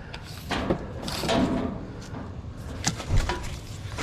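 Clattering and knocks of scrap objects being handled and moved, a few separate knocks with one sharp knock at the end.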